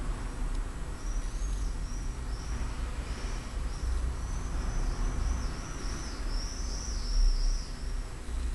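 A small bird chirping: a run of short, high chirps, each rising and falling, from about a second in to near the end, over a steady low hum.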